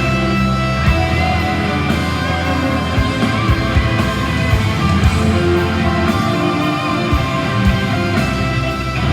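Rock band playing live: electric guitars over bass and a steady drum beat.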